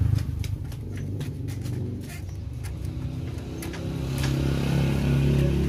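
A motor vehicle engine running steadily, its low hum growing louder about four seconds in. Scattered light clicks and taps come from metal engine parts being handled.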